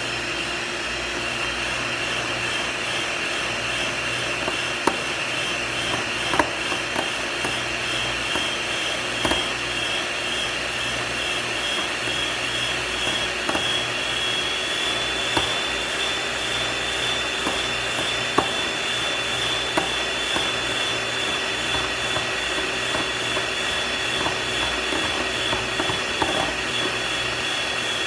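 Small handheld electric milk frother whirring steadily as it whips instant coffee, sugar and hot water into dalgona foam in a glass bowl. Its pitch rises slightly about halfway through, and there are scattered light clicks as the whisk touches the glass.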